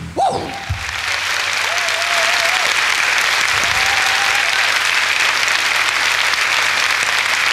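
Concert audience applauding as a song ends: a sharp final hit from the band just after the start, then steady clapping. Two long held tones ring out over the clapping, about two and four seconds in.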